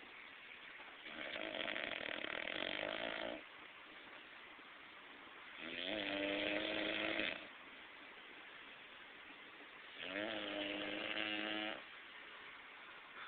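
A person snoring loudly: three long snores about four seconds apart, each lasting about two seconds with a buzzing, pitched tone, and quieter breathing between them.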